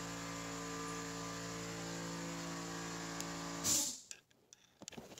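Steady electrical hum with a hiss. It cuts off abruptly about four seconds in after a short rustle, leaving a few faint clicks.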